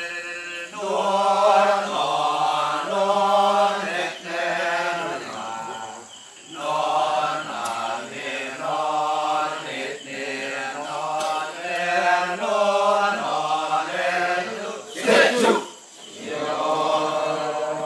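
Kecak chant from the seated men's chorus: drawn-out sung phrases, each a second or two long, with short breaks between them. One short, sharp, loud outburst comes near the end.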